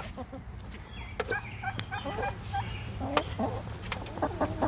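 Hens clucking in short, scattered calls while feeding, with a few sharp taps from pecking at the food.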